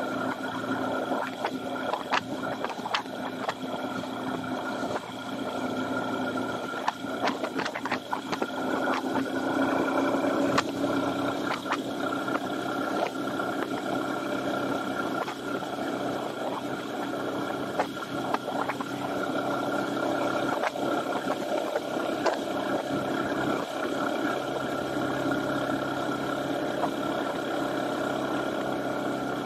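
Honda FTR223's air-cooled single-cylinder four-stroke engine running at a steady cruise, heard from a camera mounted on the moving motorcycle. Wind noise on the microphone is loud, with scattered sharp pops over the steady engine note.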